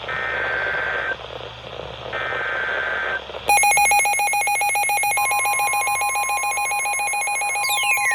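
Emergency alert tones over a weather radio: two one-second electronic tone bursts a second apart over radio hiss, then a loud, rapidly pulsing buzzing alert tone from about three and a half seconds in. A steady alarm tone joins about five seconds in, and falling pitch sweeps begin near the end.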